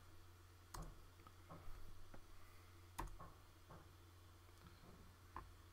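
Pen stylus tapping on a graphics tablet: a few scattered light taps, the most distinct about a second in, at three seconds and near the end, over a faint low steady hum.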